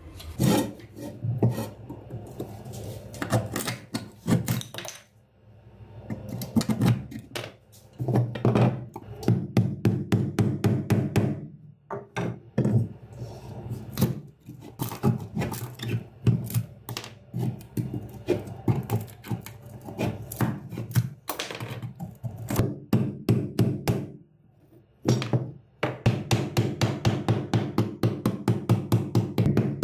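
Steel screwdriver scraping and prying at an old knife's rotted wooden handle scales and rusted metal fittings: runs of quick scrapes and knocks with short pauses, settling near the end into steady strokes about four a second.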